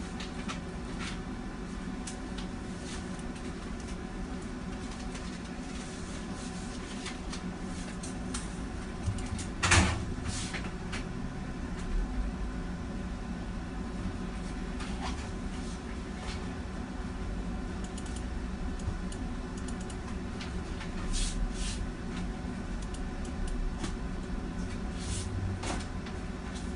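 Steady low hum of room tone with scattered faint clicks and knocks; one louder, sharp knock about ten seconds in, and a few smaller ones later.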